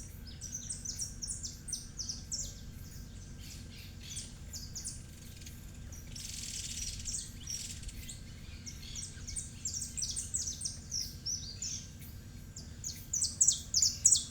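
Small birds chirping: many short, high chirps in quick succession, growing louder near the end. A brief hiss comes in about six seconds in.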